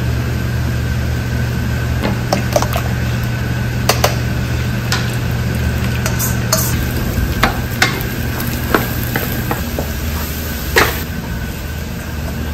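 Beaten egg with chopped vegetables frying and sizzling in a wok over a gas burner, with a utensil stirring, scraping and knocking against the pan about once a second over a steady low hum.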